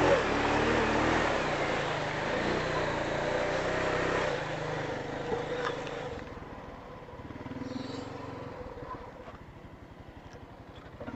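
Four-wheeler engine running hard for about six seconds, then dropping back to a lower, evenly pulsing idle.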